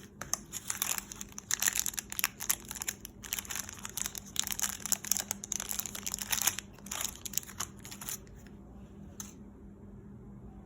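Packaging of a modelling-clay set crinkling and rustling as it is handled and opened by hand, a dense run of crackles that dies away about eight seconds in, with one last click shortly after.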